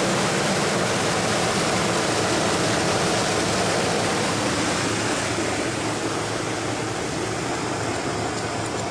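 Truck-mounted HHO torch burning with a loud steady hissing roar, the oxyhydrogen gas from the truck's dry cell rushing through the tip, with a faint low engine hum underneath. The hiss eases slightly about halfway through.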